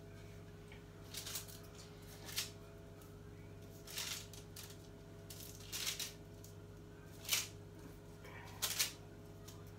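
Hands rolling dough balls on a baking-parchment-lined tray: short, irregular papery rustles and scrapes, about six of them, over a steady low hum.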